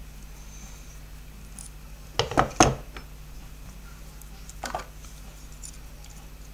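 A quick run of three sharp metallic clicks and clacks, then two softer ones about two seconds later, as a wire crimping tool and small metal spade terminals are handled on a wooden workbench. A steady low hum runs underneath.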